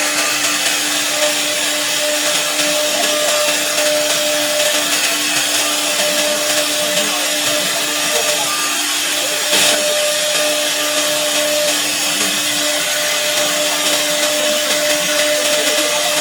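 Spindles of a two-spindle 1830 CNC router running in a test run: a steady whine over a loud hiss, with one short sharp sound about ten seconds in.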